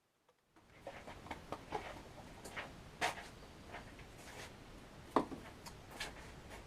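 Irregular light knocks, taps and scrapes of hands and tools at work, with a few louder knocks, over a low steady background noise; the sound starts about half a second in.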